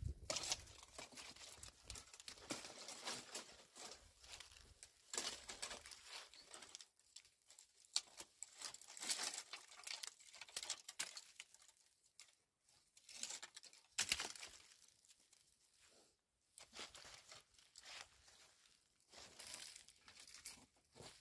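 Irregular rustling and crinkling, in short bursts every second or two.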